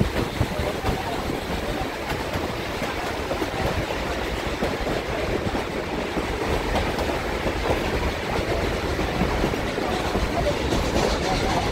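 A moving train running on the rails, a steady, unbroken running noise of wheels and cars on track.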